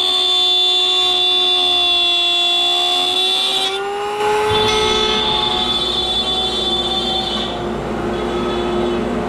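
Router spinning in a router table while cutting a wooden bracket: a steady high whine whose pitch rises about three to four seconds in. After that a lower, steady machine rumble takes over.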